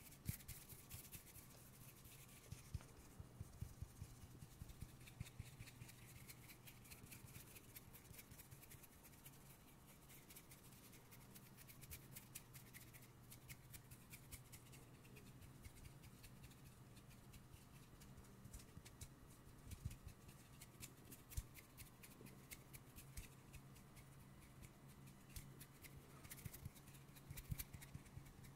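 Fingertips rubbing, tapping and snapping right at a pair of sensitive condenser microphones, making a steady stream of faint crackling clicks with a few sharper ones near the end.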